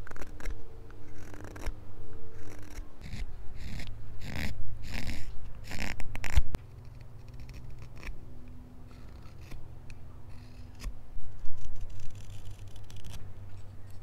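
Morakniv carving knife slicing thin shavings from hand-held wood: a run of short rasping cuts, loudest about four to six and a half seconds in, then lighter cuts.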